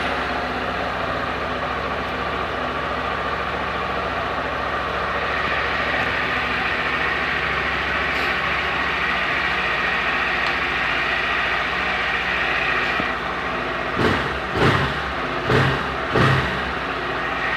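Honda CG Fan 160 motorcycle's single-cylinder engine idling steadily just after a cold first start of the day, with four short surges in sound near the end. The owner hears none of the abnormal engine noise that others complain of in this model.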